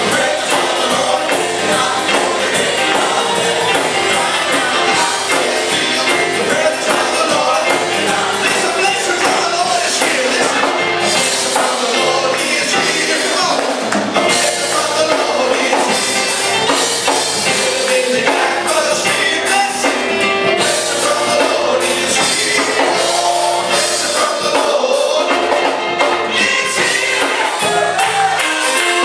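Gospel worship music with singing over a full band.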